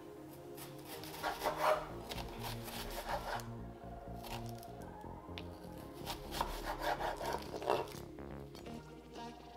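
A chef's knife slices a red onion thinly on a wooden cutting board. Clusters of quick cuts come about a second in, around three seconds and again between six and eight seconds, over background music.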